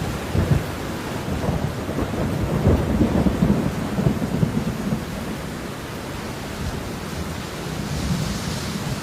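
Steady falling rain with a low, crackling rumble of thunder over the first half that fades back into the rain.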